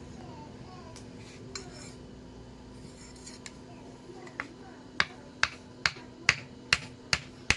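Light metal-on-metal taps, as from a small hammer on steel, starting near the middle and settling into about two sharp, ringing strikes a second, over a steady low hum.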